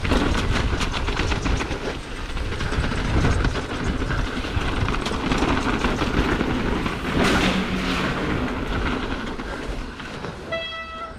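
A mountain bike ridden fast down a rough, rocky gravel trail: tyre roar, wind rumbling on the microphone, and a constant rattle of chain and frame over the stones. Near the end, as the bike slows and stops, a brief high-pitched brake squeal.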